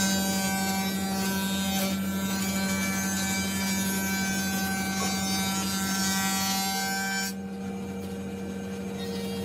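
Electric power tool running at a steady speed with a strong hum and a hiss on top; the hiss cuts out about seven seconds in while the motor keeps running.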